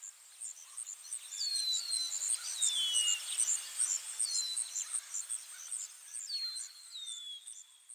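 Outdoor nature ambience. Birds give about half a dozen short, falling whistled calls over a fast, steady high chirping of insects and a soft hiss.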